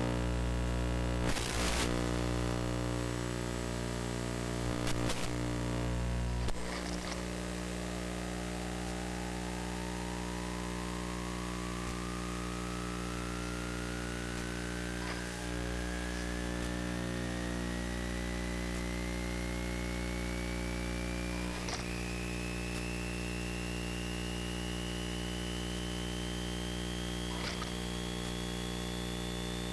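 Steady electrical hum and buzz with many overtones, broken by a few brief crackles in the first seconds. From about seven seconds in, a thin whistle rises slowly and steadily in pitch over the next twenty seconds.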